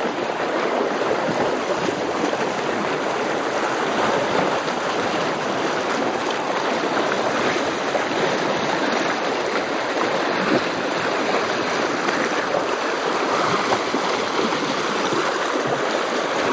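Steady rushing wind noise, an even hiss without breaks, which the person filming takes to be the wind.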